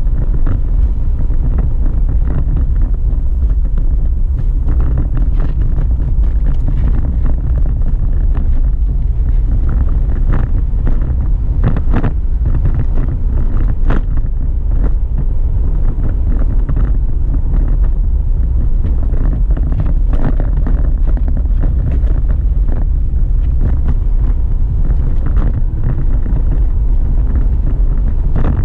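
Steady low rumble of a car driving, heard from inside the cabin: engine and tyre noise on the road, with a couple of light knocks near the middle.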